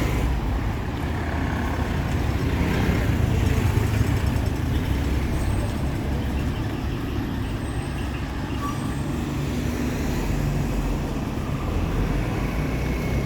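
Town street traffic: the steady low rumble of motor vehicle engines running close by.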